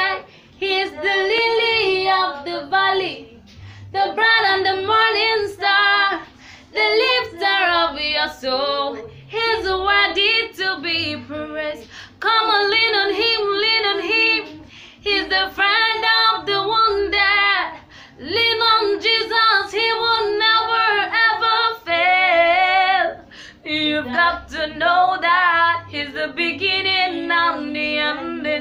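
A young woman singing solo and unaccompanied, with a wavering vibrato on held notes, in phrases of a few seconds broken by short breaths.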